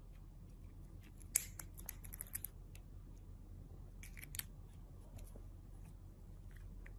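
Soft clicks and rustles of a cat play-biting and pawing at a person's finger, in a cluster about a second and a half in and another about four seconds in, over a low steady room hum.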